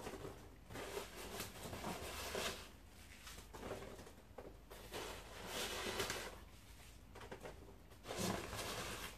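Foam packing peanuts rustling in a cardboard box as handfuls are scooped out and dropped into a plastic bag, in several irregular bursts.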